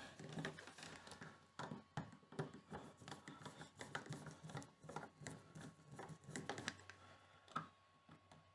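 Faint, irregular clicks and scrapes of a dimmer switch being handled and screwed to a wall electrical box with a hand screwdriver.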